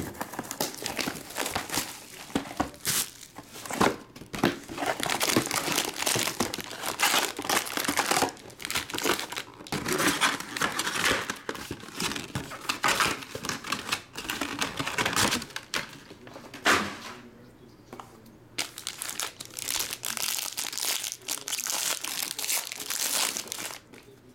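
Plastic shrink wrap and foil trading-card packs crinkling and tearing as a sealed box of football cards is unwrapped and packs are ripped open, in irregular bursts with a short lull about two-thirds of the way through.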